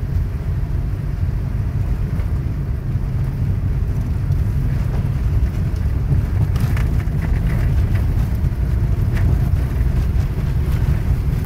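Car driving on a wet, slushy road, heard from inside the cabin as a steady low rumble of engine and tyres. Light ticking in the second half, as the windshield wiper sweeps across the glass.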